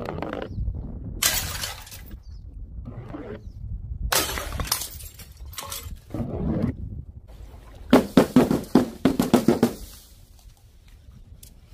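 Balls rolling down a wooden chute and smashing into glass jars of coloured powder on paving tiles: a low rolling rumble, then several shattering crashes, with a burst of rapid clattering glass shards about eight seconds in.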